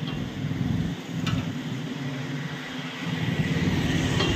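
A vehicle engine running steadily as a low rumble, with one sharp click about a second in.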